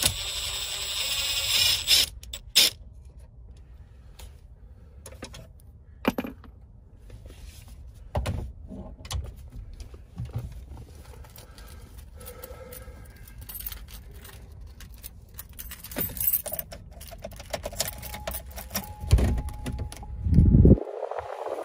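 A cordless drill-driver runs for about two seconds, taking out the screws that hold a factory dash radio. Scattered clicks, knocks and light rattles of hardware and plastic trim follow, with a few heavy thumps near the end.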